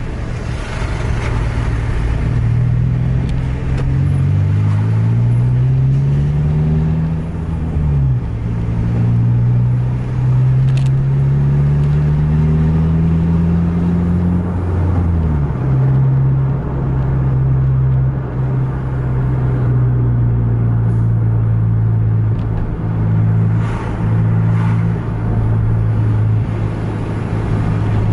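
A road vehicle's engine pulling through the gears. Its note rises steadily, drops sharply about eight seconds in and again about fifteen seconds in as gears change, then holds roughly steady over road noise.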